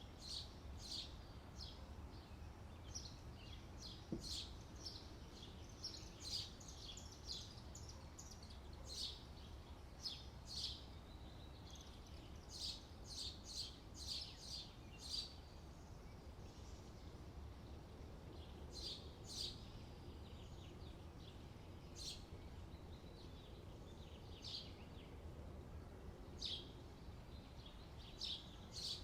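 Small birds chirping in short, high calls that come in irregular clusters, over a faint steady low rumble.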